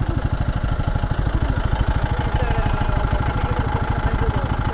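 Motorcycle engine idling steadily while stopped, its firing pulses even and regular.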